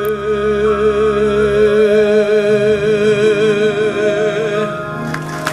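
Male operetta singer holding the final sung note with a steady vibrato over the accompaniment, cutting off about four and a half seconds in. Applause starts just before the end.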